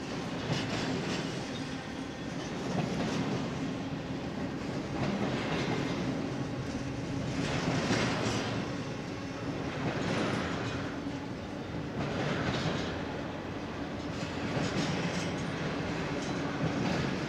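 Union Pacific freight train's cars rolling past, steel wheels clacking over the rail with a steady hum and a swell in loudness about every two seconds.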